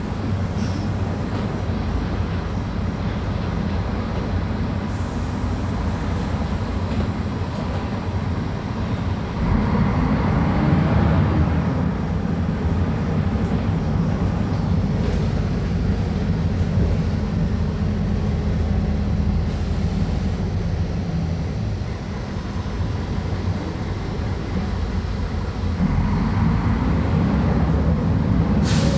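Mercedes-Benz O500UA articulated bus's diesel engine running under way, driving through a ZF Ecomat automatic gearbox. It pulls harder about a third of the way in and again near the end, easing off in between, with a brief hiss just before the end.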